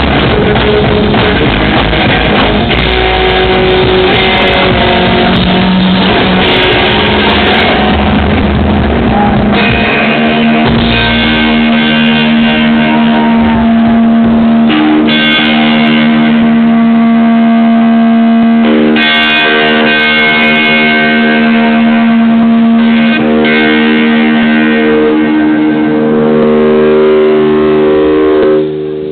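Live rock band playing very loud, recorded close to the PA speakers so the sound is overloaded and muddy. About ten seconds in the heavy low end of drums and bass thins out, leaving long sustained electric guitar chords ringing with occasional hits. The music dips briefly right at the end.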